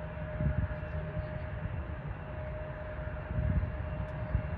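Jet airliner engine noise: a steady whine over a broad rumble, with gusty low rumbles swelling about half a second and three and a half seconds in.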